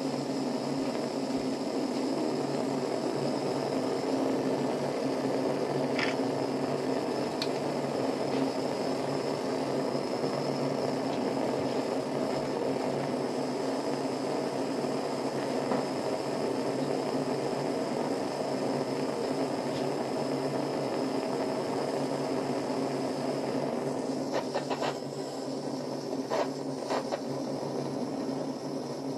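Gas torch flame burning steadily with a constant, even hiss and hum. A few faint clicks come through, around six seconds in and again near the end.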